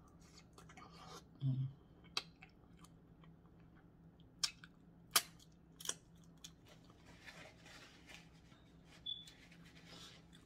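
Close-up mouth sounds of someone chewing a bite of food, with several sharp wet clicks and smacks between about two and six seconds in. A brief low hum comes about one and a half seconds in.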